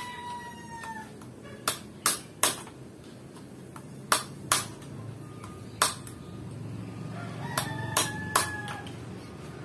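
About nine sharp metallic taps in short runs of two or three, as a new steering-head bearing race is tapped into place on a Keeway Cafe Racer 152 motorcycle. A rooster crows at the start and again near the end.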